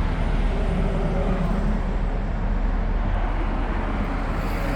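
Outdoor central air conditioner condenser units running: a steady whir of the condenser fan blades, helicopter-like, over a low compressor hum.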